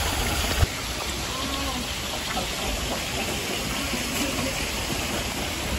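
Steady rushing of water at a carp pond, an even hiss with faint voices under it. The level drops slightly under a second in.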